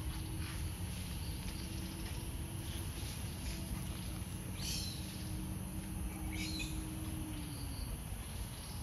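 Outdoor woodland ambience: a steady background noise with a faint low hum that fades out near the end, and two short high-pitched animal calls, one about halfway through and one a couple of seconds later.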